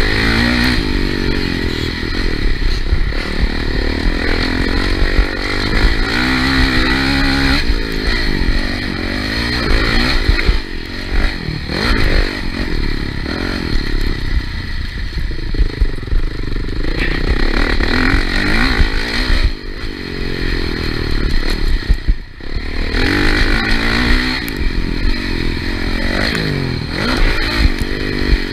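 Motocross bike's engine heard close up from on the bike during a race, revving hard and rising and falling in pitch again and again as the rider works the throttle and gears. The throttle shuts off briefly about three quarters of the way through.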